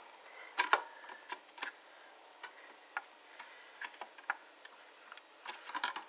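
Scattered small plastic clicks and taps as a Corsair RAM stick is pressed and rocked into a motherboard memory slot. The slot's end latch has not been opened, so the module will not seat fully.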